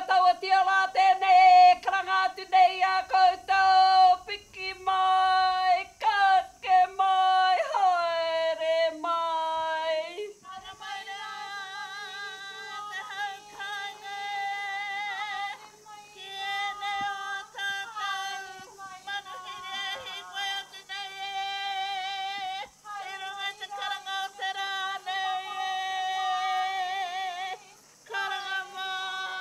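Karanga, the Māori women's ceremonial call of welcome: a woman's high voice in long, held, wavering notes, with short breaks between phrases and a long downward slide about eight seconds in.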